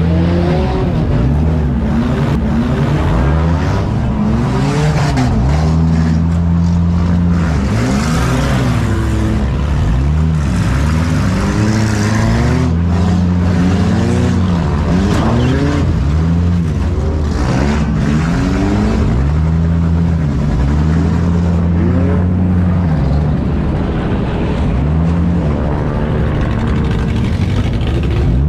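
Demolition derby car engines revving hard, the pitch repeatedly climbing and falling as the cars back up and ram each other. At times an engine is held at steady high revs for a couple of seconds.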